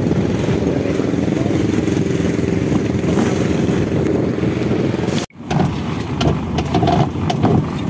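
Fishing boat's engine running steadily, with wind and water noise. About five seconds in the sound cuts out for an instant and resumes with scattered knocks and clicks over the engine as rope is hauled in on the deck winch.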